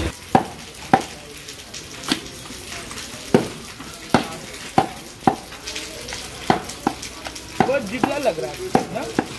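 Butcher's knife tapping and scraping on a round wooden chopping block while trimming fat and membrane from beef: about a dozen sharp knocks at uneven intervals.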